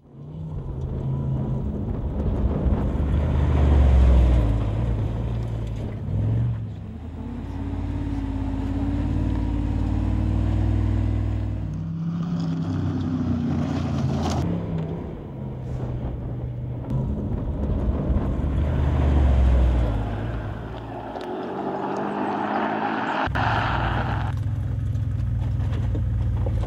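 Engine of the Korres P4 all-terrain supercar running and revving under load as it crawls over concrete slabs and rocks. The engine note rises and falls, and the sound changes abruptly twice where the film cuts between shots.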